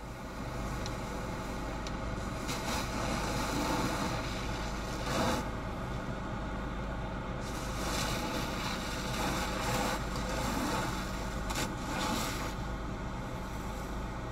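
A fire hose spraying water onto a burning car: a steady rushing hiss that starts about half a second in, with several louder surges, over a constant low hum.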